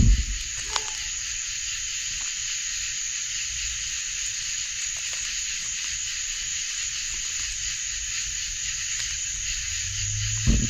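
Steady chorus of night insects such as crickets, an even high-pitched shrill with no break, with a single faint click about a second in.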